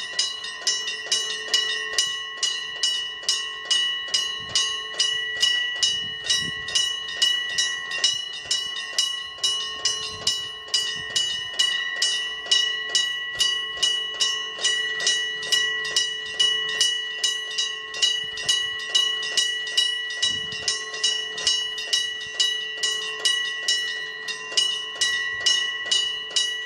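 Japanese railway level-crossing warning bell ringing steadily at about two strikes a second.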